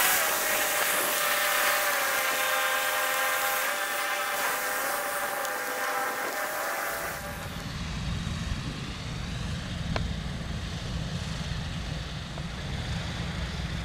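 Airship's propeller engines running, with a sharp, high pitch that steps up and down for the first several seconds. About seven seconds in this gives way to a lower, steady rumble.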